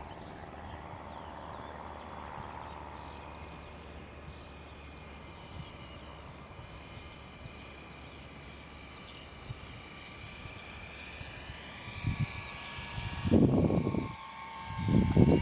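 Electric RC Corsair model's brushless motor and three-blade propeller whining on a flapped approach, the whine strengthening as the model comes in low. Loud, irregular low rumbles break in over the last few seconds.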